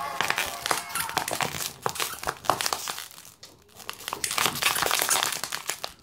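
Dog chewing a plush monkey toy, a dense run of crackling, crinkling rustles as its jaws work the fabric, easing off briefly a little past three seconds in before picking up again.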